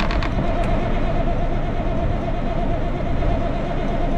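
Caterpillar mechanical diesel engine cranking over on its starter motor without firing. The sound is a steady drone with a constant whine running through it.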